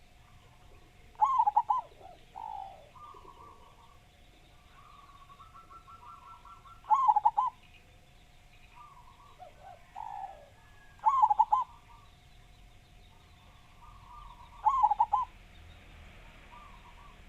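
Zebra dove (perkutut) singing: four loud phrases of quick coo notes about every four seconds, with fainter bird calls in between over a faint steady tone.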